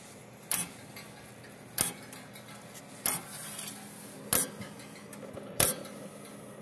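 Old mechanical 6-volt electric fence charger running with its cover off, ticking: a sharp click about every 1.25 s as the spring-driven wheel snaps the points shut and fires each pulse. The points are arcing where they make contact, which the owner puts down to a dirty contact burning off built-up carbon.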